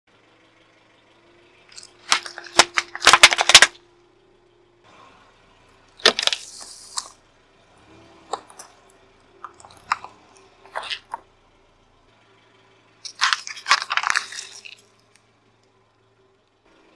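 A car tyre rolling over and crushing objects on asphalt: groups of sharp cracks, pops and crunches as things burst under it, with a short hissing spray about six seconds in, like a plastic drink bottle bursting. A faint steady hum runs underneath.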